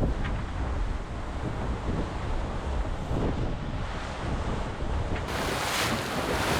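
Wind buffeting the microphone over the rush of water along a racing yacht's hull at sea. About five seconds in, a louder hissing rush of water and spray sets in suddenly.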